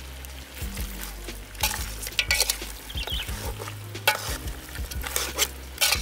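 A metal spatula stirring and scraping frying duck meat around a large steel pot, the meat sizzling, with several sharp scrapes of metal on the pot.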